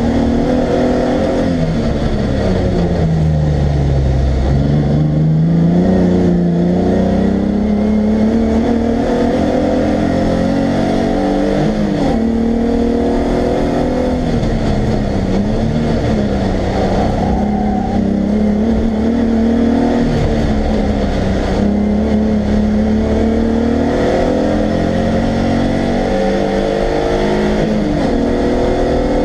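Race car engine heard from inside the cabin on track, running between about 4,500 and 5,600 rpm. Its pitch sinks a few seconds in, then rises and dips several more times as the driver lifts for corners and gets back on the throttle, climbing again near the end under full throttle.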